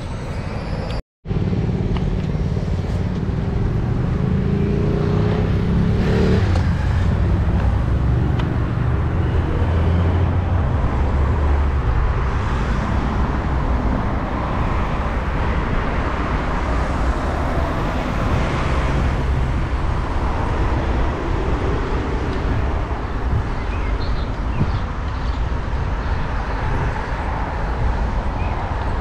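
Road traffic beside a cycle path: cars and a bus passing, with a vehicle's engine speeding up in the first several seconds, over steady rushing noise from the moving bicycle. The sound cuts out completely for a moment about a second in.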